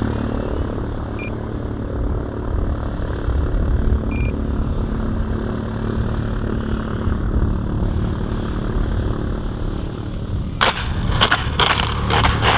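Electric motor and propeller of an RC aerobatic plane (E-Flite Extra 300 3D) running in flight, mixed with wind rumbling on the microphone. There are two short high beeps early on and a few sharp knocks near the end.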